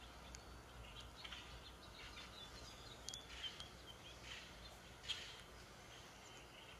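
Faint, scattered short bird chirps playing from a tablet's small speaker, from a video of birds feeding on snow.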